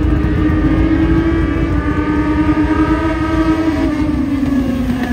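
A pack of Legend race cars, their Yamaha motorcycle engines running hard together on a dirt oval; the engine pitch falls in the last second or so as the cars go by.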